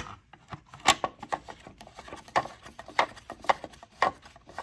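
A string of irregular clicks and taps from handling a chainsaw at its plastic air filter cover, the loudest about a second in.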